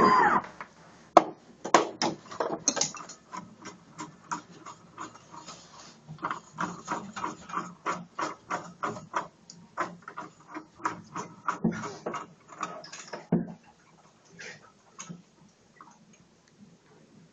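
Aluminium venetian blind being tilted shut with its wand: a steady run of clicks and light rattles from the tilt mechanism and slats, about three a second, ending with a louder knock about thirteen seconds in, followed by only a few faint clicks.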